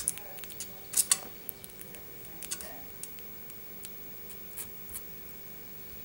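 Baby agouti biting and gnawing into a raw apple half: a series of short, crisp crunches, loudest about a second in, over a faint steady hum.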